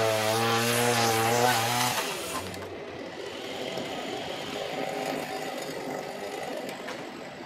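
Chainsaw cutting sections off the top of a maple trunk. It starts abruptly at full revs with a strong, wavering engine note, then about two seconds in drops to a quieter, rougher sound as it works through the wood.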